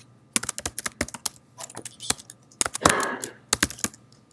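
Typing on a computer keyboard: a quick, irregular run of key clicks as a line of code is typed, with one brief muffled sound about three seconds in.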